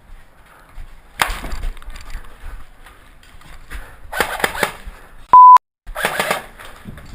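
A loud, steady censor bleep about half a second long, a little past the middle, cut to dead silence right after. Around it come three short bursts of clattering, knocking noise.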